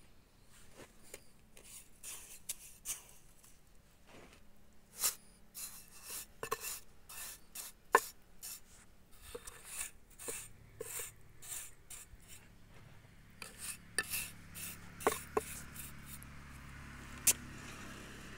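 Steel mason's trowel scraping and tapping against concrete blocks and cement mortar as mortar is packed into a column form: a run of short scrapes and sharp clicks, the sharpest taps about 8 and 17 seconds in. A low steady hum comes in near the end.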